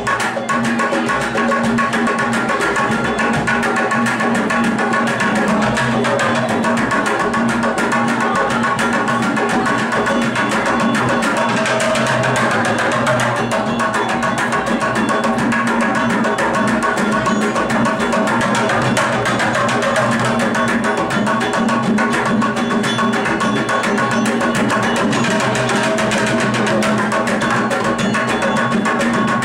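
Live hand percussion: palms drumming a steady beat on empty plastic water-cooler jugs, with sustained tones running underneath.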